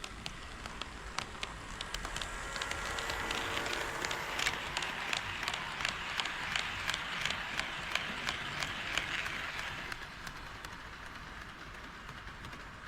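HO scale model train running past on KATO Unitrack: a whirring rumble that builds, peaks and fades as it passes, with rapid irregular clicking of the wheels over the rail joints.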